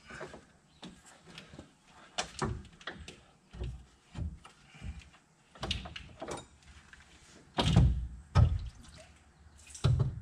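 Knocks and clunks of a small secondary radiator being worked loose by hand and tilted out of its mounting beside the main radiator. The knocks come every second or so, and the heaviest, deepest thumps come about three-quarters of the way in and again near the end.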